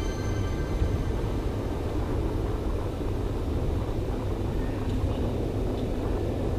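Steady low rumbling background noise with no clear tone or beat.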